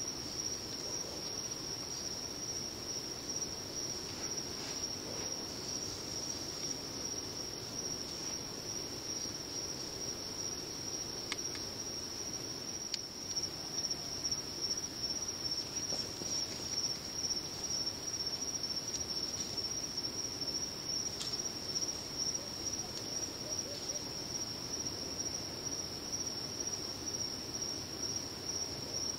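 A steady, unbroken high-pitched chorus of insects chirring, over low background noise, with a few faint ticks.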